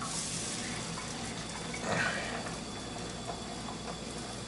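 Egg frying in a frying pan, a steady hiss of sizzling.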